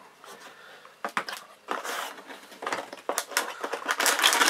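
Cardboard box packaging being handled: scraping, rustling and light knocks as a graphics card's box is pulled out of its plain shipping box, starting about a second in.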